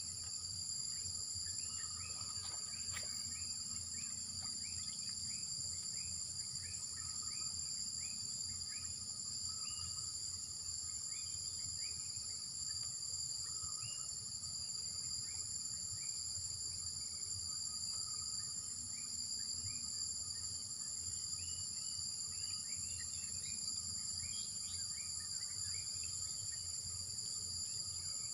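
Steady high drone of insects (crickets or cicadas) holding several constant pitches, with many short falling bird chirps scattered throughout, over a low rumble.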